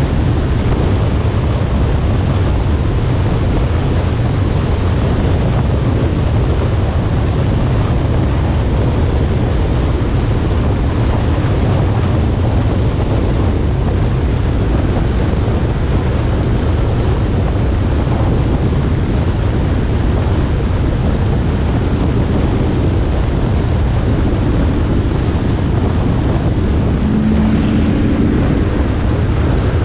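Steady wind buffeting on a hood-mounted camera of a car driving at road speed, with road and engine noise underneath. A brief low hum rises out of it near the end.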